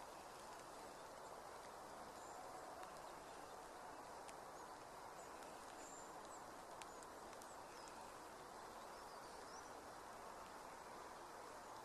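Faint steady rain hiss, with a few faint, short, high bird chirps over it.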